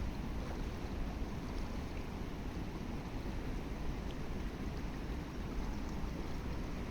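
Steady outdoor rush of a flowing river, with a low rumble of wind on the microphone.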